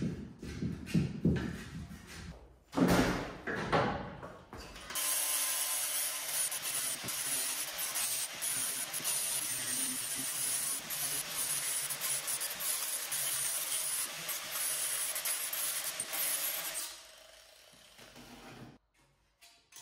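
A few seconds of irregular knocks and clatter, then an angle grinder running steadily on sheet metal with a high whine for about twelve seconds before it winds down.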